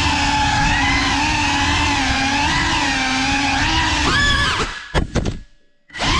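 Cinelog 35 cinewhoop FPV drone's motors whining steadily, the pitch shifting slightly with the throttle. About four seconds in the whine swoops up and down, breaks into a few sharp crackles and drops out almost to silence for about half a second, then comes back wavering in pitch.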